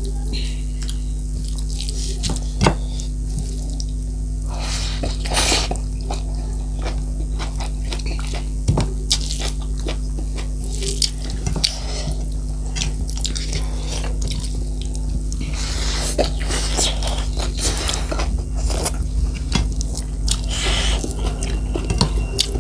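Close-up eating sounds: chewing, with many short clicks and taps scattered through. Under them runs a steady low electrical hum.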